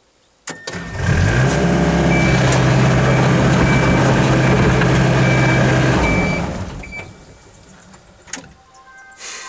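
Excavator diesel engine cranked and starting about a second in, rising to a steady run with short high warning beeps sounding on and off. It winds down and stops about six seconds in. The machine has been cutting out repeatedly from a mechanical fault.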